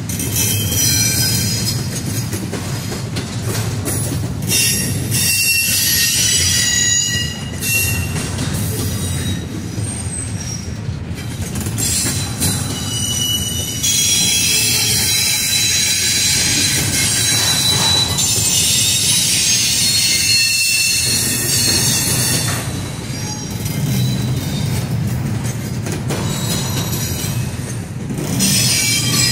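Double-stack intermodal well cars of a CSX freight train rolling past, a steady rumble under high steel-wheel squeals that come and go several times.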